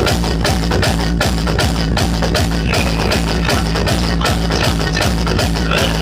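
Loud music with a heavy, steady bass beat, played through a DJ loudspeaker system at full volume for a sound check.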